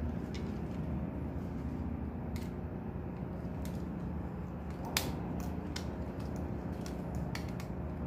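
Scattered small clicks and taps of a screwdriver and stiff wires against a plastic wall switch as its terminal screws are worked, with one sharper click about five seconds in. A steady low hum lies underneath.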